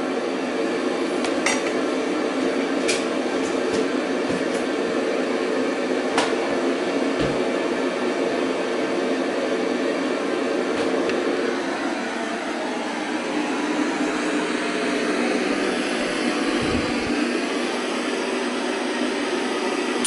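Steady hiss and buzz of static from the speaker of a 1978 Zenith Chromacolor II portable colour TV on an empty channel, with a few light clicks in the first several seconds.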